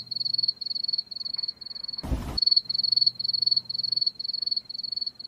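Cricket chirping: a steady high chirp repeating about twice a second that stops abruptly near the end, with one heavy boom about two seconds in.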